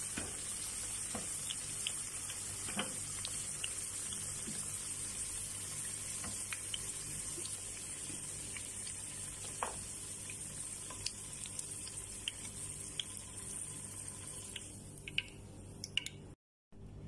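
Carrot slices frying in hot oil in a pan: a steady sizzle, with scattered light clicks of tongs against the pan as the pieces are lifted out. The sizzle thins a little near the end as the pan empties.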